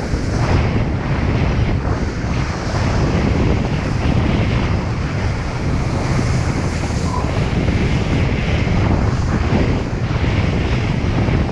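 Wind buffeting the camera microphone: a loud, steady rumble and hiss that swells and eases every second or so.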